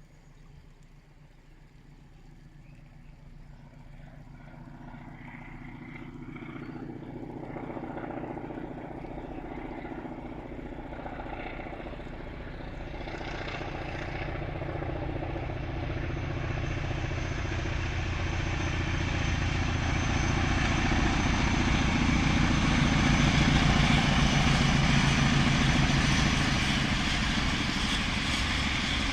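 Diesel engine of CP 1413, a Portuguese Railways 1400-class locomotive, working under power as it approaches. Its roar grows steadily louder from faint, peaks about twenty-four seconds in, then eases slightly.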